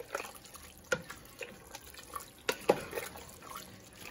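A wooden spoon stirring thick ground-beef and kidney-bean chili in a large metal pot: wet squelching, with several irregular sharp knocks of the spoon against the pot.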